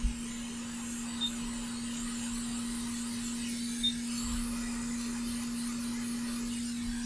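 Electric heat gun running steadily, a constant motor hum under the hiss of blown air, as it shrinks heat-shrink tubing onto the cable's wires.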